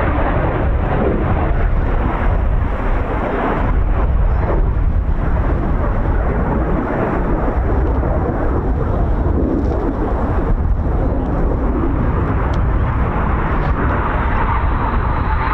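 Strong wind buffeting the microphone over the steady roar of the Red Arrows' BAE Hawk jets at a distance. The jet noise grows louder near the end as the aircraft approach.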